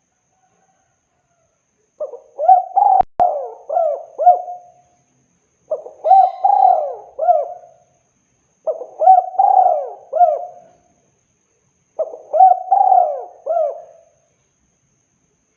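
Spotted dove (tekukur) cooing: four repeated phrases of several quick coos each, about two seconds long and a second or so apart, beginning after a brief silence. A single sharp click sounds during the first phrase.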